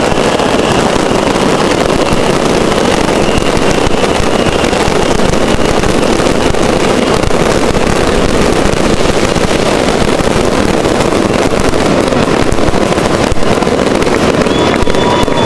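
Fireworks going off in a dense, continuous barrage at close range: an unbroken loud crackle of rapid bursts. A faint high whistle runs through the first half and comes back briefly near the end.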